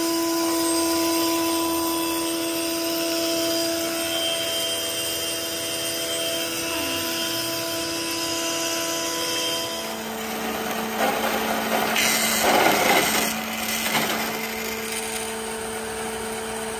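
Combination woodworking machine running steadily, its cutter block working a groove along a board with a constant motor hum. About ten seconds in, the sound changes to the machine's chain mortiser, which cuts loudly and roughly into timber for a few seconds before settling back to a steady running hum.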